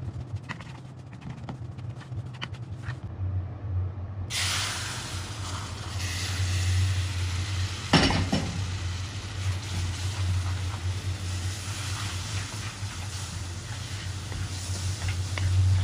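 A wooden spoon scraping and stirring dry toasted flour in a metal pan, then, about four seconds in, sudden loud sizzling as liquid meets the hot flour mixture, which keeps bubbling as it is stirred. There is a sharp knock about eight seconds in and a steady low hum underneath.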